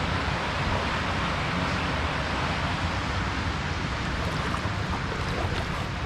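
Creek water running, a steady rushing noise with a low rumble underneath.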